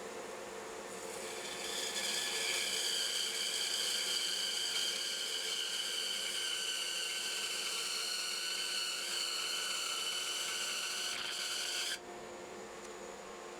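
Bandsaw running while its blade rips through a wooden block along the fence, slicing off a quarter-inch-thick back. The cutting sound builds about a second in, holds steady with a high whine, then stops abruptly near the end as the blade comes out of the wood, leaving the saw running.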